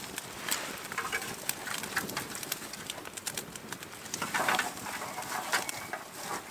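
Dry twigs rustling and snapping as a bundle is pushed onto a campfire, with the fire crackling in short irregular clicks; the rustling is heaviest about four and a half seconds in.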